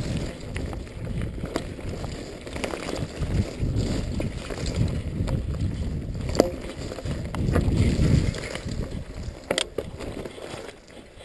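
Norco Storm hardtail mountain bike riding down a dirt trail: knobby tyres rumbling over the ground and wind buffeting the microphone, swelling and easing with speed, with a few sharp clicks and rattles from the bike over bumps.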